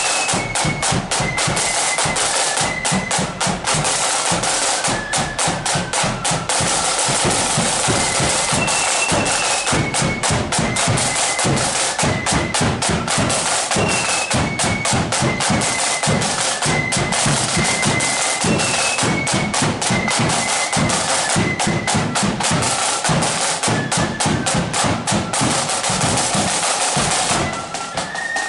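Marching flute band playing: flutes carry a stepping tune over dense snare drumming and bass drum beats, with a brief drop near the end before the tune picks up again.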